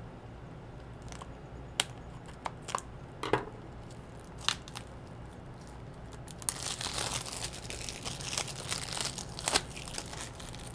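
A few sharp clicks of a disc case being handled, then, about halfway through, plastic wrapping on a new Blu-ray case crinkling and tearing for a few seconds as it is unwrapped.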